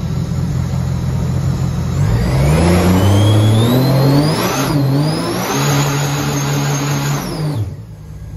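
Jet boat engine revved hard from idle about two seconds in, with a rising whine and the rush of its water jet throwing a tall plume of spray. The revs dip briefly midway, then drop sharply back to idle near the end.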